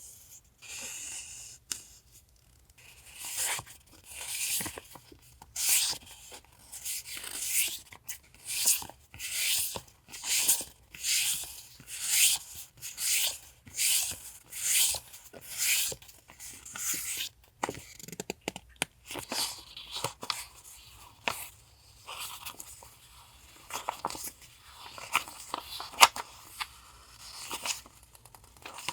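Paper being handled: a run of short, crisp rustles, one sheet after another at about one a second, then softer, uneven rustling with a few sharp clicks in the second half.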